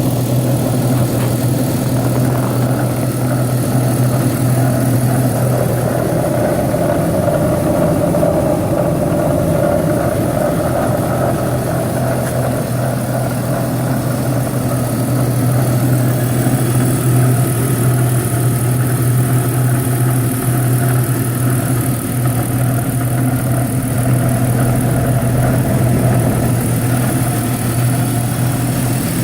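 2001 BMW 530i's inline-six engine running at a steady speed, with a growling noise that the owner cannot place as the belt tensioner or something else.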